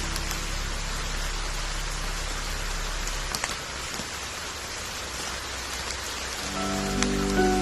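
Steady rain falling, an even hiss with a few sharper drop ticks. Soft sustained low music chords fade out in the first few seconds, and a new chord comes in near the end.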